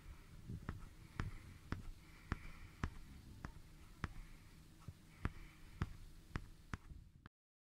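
Faint, evenly spaced ticks, a little under two a second, over a low room rumble; the sound cuts off suddenly near the end.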